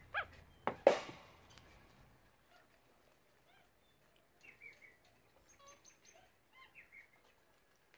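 Monkeys chirping and squeaking as they eat, with one sharp loud squeal about a second in, then a few faint high chirps.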